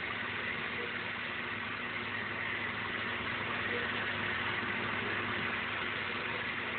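A steady mechanical hum from a running motor, even throughout with no separate strokes or scrapes.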